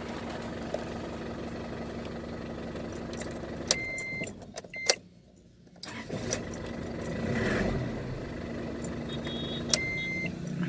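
Car engine idling steadily. About four seconds in it is broken by short high electronic beeps and a second of silence, then it is running again, with another short beep near the end.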